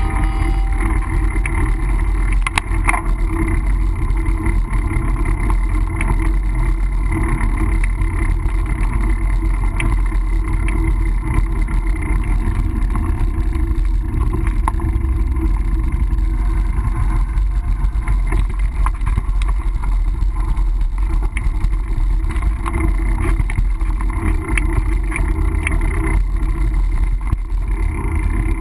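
Mountain bike riding along: a steady rumble of wind buffeting the camera's microphone and tyre noise, with occasional short rattles and clicks.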